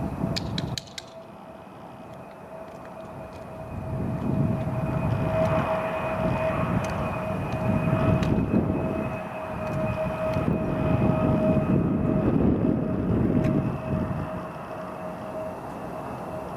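Jet airliner engines on approach with a steady whine, over a low rumble that swells and fades with gusts of wind on the microphone.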